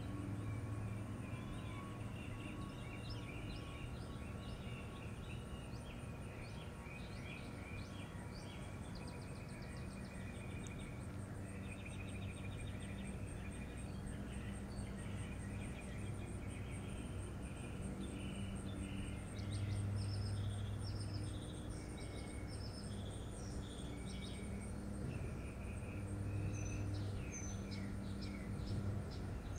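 Outdoor ambience: several birds chirping and singing on and off, over a steady high, fast-pulsing insect trill. Beneath them is a low hum that swells twice, about two-thirds of the way through and again near the end.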